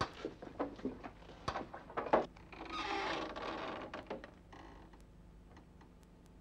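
Clicks and knocks of handling at an old door, then a creak of about a second and a half as the door swings on its hinges.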